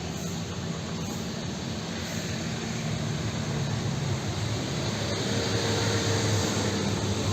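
Fairly heavy rain falling, a steady hiss, with a low hum underneath that grows a little louder over the last few seconds.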